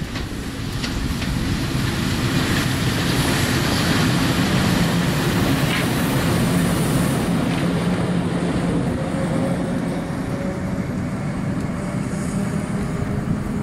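PKP ET41 two-section electric locomotive moving past at low speed while shunting: a steady electric hum with wheel noise on the rails. It is loudest about four to seven seconds in, then eases a little.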